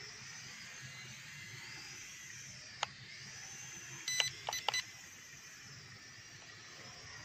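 Small toy quadcopter's motors and propellers whining, the pitch rising and falling as the throttle changes. A sharp click comes a little under three seconds in, and a few short beeps about four seconds in.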